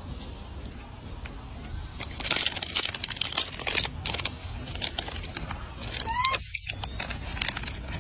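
Plastic food packet rustling and crinkling, with many quick irregular crackles and clicks. A short rising squeak comes about six seconds in.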